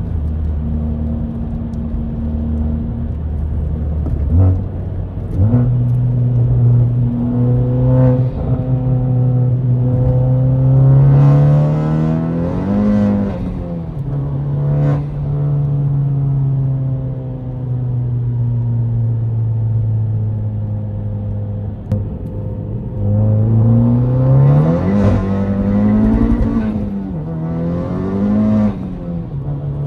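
Honda Civic Type R (FK8) turbocharged 2.0-litre four-cylinder, tuned to about 400 wheel horsepower, driven hard: the engine note climbs under acceleration and drops sharply at each gear change. There is one long pull about a third of the way in and two quick pulls near the end, with steady cruising between.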